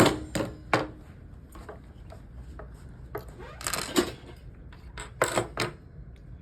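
Allen keys and small metal tools clicking and knocking as they are picked through and handled, with a short scraping rustle partway through.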